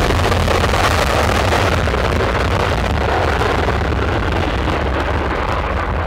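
F-16 fighter jet on its takeoff roll with the afterburner lit: a loud, steady jet roar with a deep rumble, easing a little near the end.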